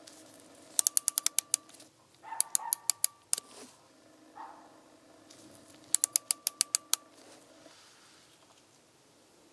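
Digital micrometer's ratchet stop clicking in three quick runs of six to eight sharp clicks, with a single click and a couple of soft handling knocks between them, as the spindle is closed on the test sample. A faint steady hum runs underneath.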